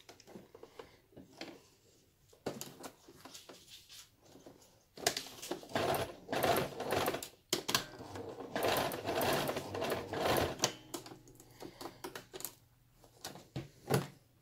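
Electric domestic sewing machine stitching a seam in two short runs of rapid needle strokes with a brief pause between them, about a third of the way in. Scattered clicks of the fabric and machine being handled come before and after the runs.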